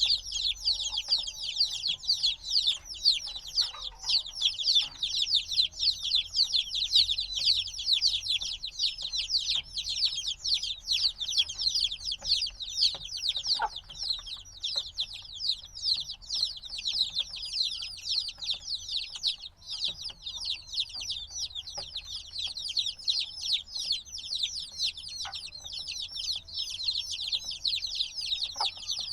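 A brood of chicks only a few days old, many peeping at once in a dense, continuous chorus of high, rapid chirps.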